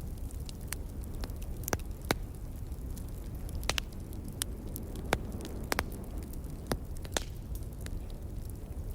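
Wood fire crackling, with about a dozen sharp, irregular pops and snaps over a low steady rumble.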